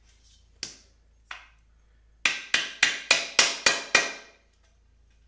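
Rubber mallet tapping a corner piece onto the PVC frame of a reptile enclosure: two light taps, then a run of seven quick strikes, about three to four a second.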